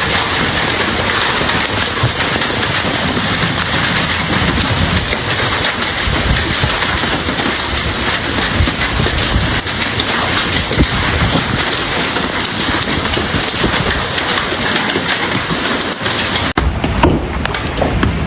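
Heavy hail and rain pounding down in a dense, steady rush. Near the end it changes to sharper, separate knocks of hailstones striking.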